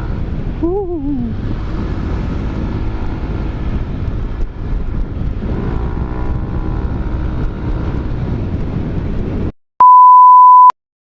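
Yamaha NMAX 155 scooter's single-cylinder engine running through a Rob1 Racing aftermarket exhaust, with its pitch rising and falling as it is revved. It cuts off and is followed by a loud, steady, high beep lasting about a second.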